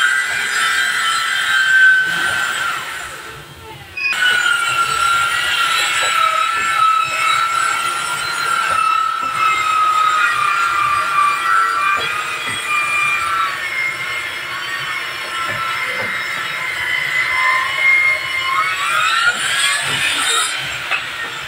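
Black & Decker circular saw cutting wood: a steady motor whine that sags in pitch under the load of the cut. It fades out about three seconds in and starts again sharply at four seconds. Near the end the pitch rises as the blade frees up.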